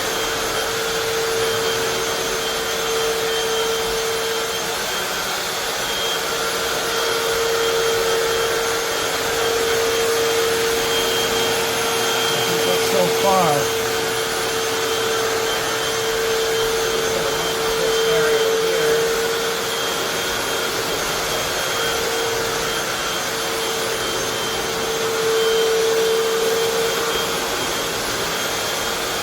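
Hoover FloorMate Deluxe hard-floor cleaner running steadily, a constant motor tone over rushing suction noise.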